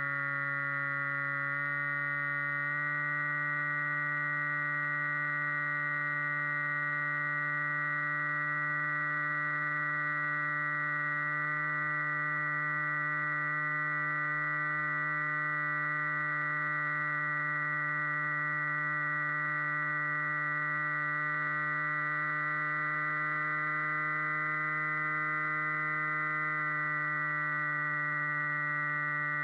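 RC flying wing's motor and propeller running in flight, a steady hum heard from the onboard camera. The pitch steps up slightly about two seconds in and shifts a little near the end with small throttle changes.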